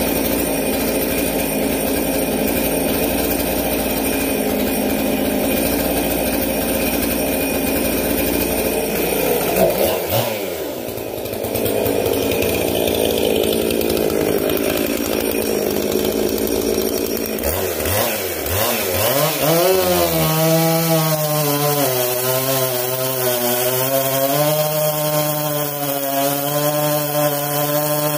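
Steady engine noise, then a Husqvarna 262XP two-stroke chainsaw revs up about two-thirds of the way in and runs at full throttle cutting into a big maple log, its pitch wavering under load. The chain has just been filed sharp after cutting crooked.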